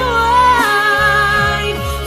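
Acoustic pop music: a melody that slides between notes over a bass line.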